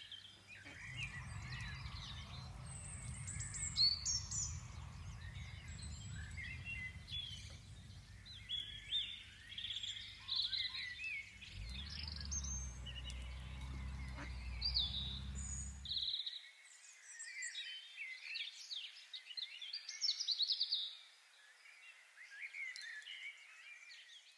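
Several small birds singing and chirping, with many short, overlapping calls and trills. A low rumble runs underneath and stops abruptly about two-thirds of the way through.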